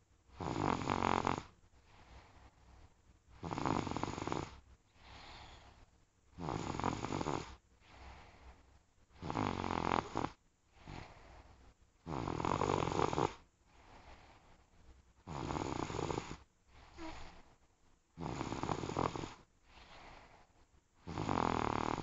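Snoring: a loud snore about every three seconds, each lasting about a second, with quieter breathing between.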